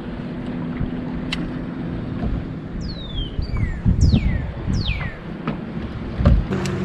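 Wind buffeting the microphone on an open boat deck, in uneven low gusts, with a low steady hum underneath and a few high whistles falling in pitch between about three and five seconds in.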